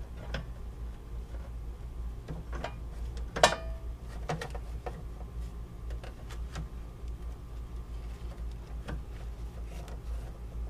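Scattered light clicks and taps of thick insulated #6 wire being pulled and handled inside a metal breaker panel, with one sharper metallic click, which rings briefly, about three and a half seconds in.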